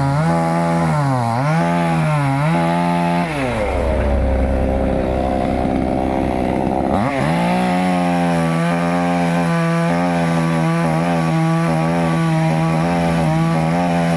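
Two-stroke chainsaw running at high revs and cutting wood, its pitch dipping each time the chain bites. About three seconds in the pitch sinks for several seconds, with a deep low rumble, before the saw picks back up to a steady high whine with brief dips. The throttle is let off near the end.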